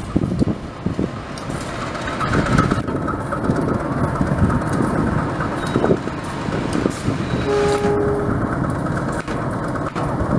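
CC 203 diesel-electric locomotive running as it is turned on a turntable: a dense, steady low rumble with scattered clicks, and a short tone about seven and a half seconds in.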